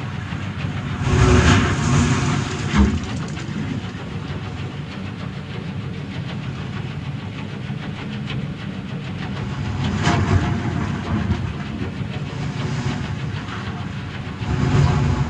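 Steam hissing over a steady low rumble, with louder surges of hiss about a second in, near ten seconds and near the end.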